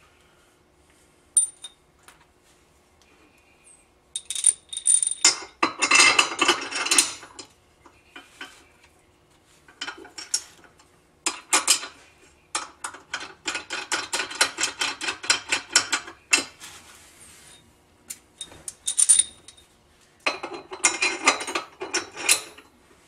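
Ratchet wrench clicking in several bursts of rapid clicks as bolts on a metal mounting bracket are tightened, with a few single metal clinks between the bursts.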